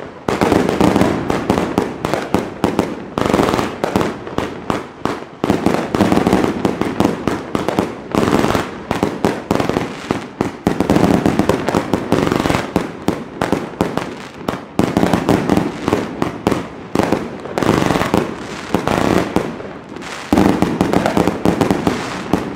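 Fireworks going off in quick succession: many sharp bangs and crackles packed close together, swelling and easing in waves.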